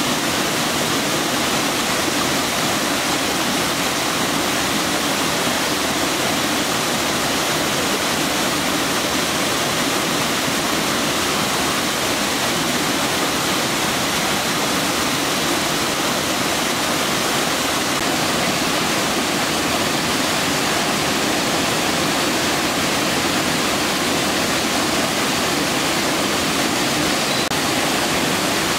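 A waterfall on a river rushing steadily and loudly, with no break or change.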